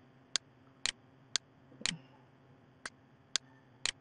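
Seven sharp clicks, evenly spaced about half a second apart, with one beat skipped midway.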